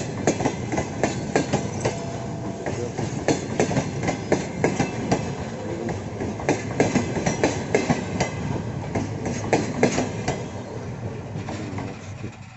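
Passenger train cars rolling past, their wheels clacking over the rail joints in quick irregular clusters above a steady rumble; the sound fades near the end.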